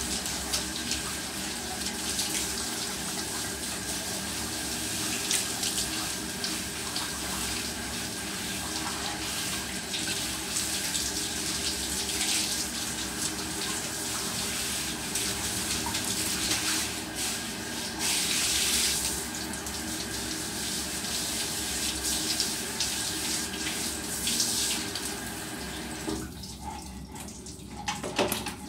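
Handheld shower head spraying water steadily onto a dog's wet coat and the tiled floor. The spray cuts off a couple of seconds before the end, followed by a few short knocks.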